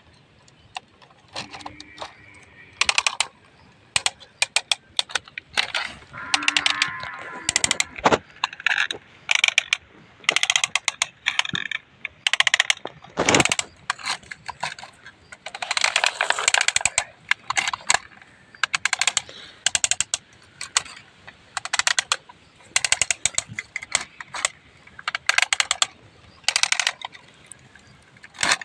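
Toy excavators being worked by hand: irregular bursts of clicking and rattling from their plastic arm joints and mechanisms.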